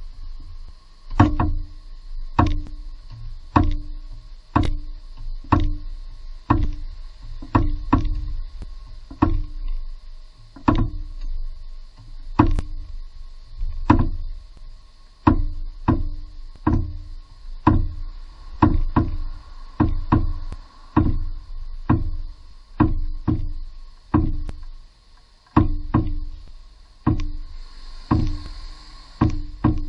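Repeated hammer blows on the steel front suspension parts of a car, about one a second with some in quick pairs, each a sharp knock with a brief metallic ring.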